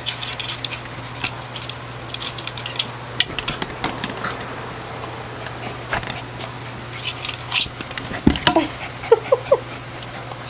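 A Boston terrier scuffling with a red toy ball on a bed: an irregular run of clicks and taps, with a few short whimpers about eight to nine seconds in.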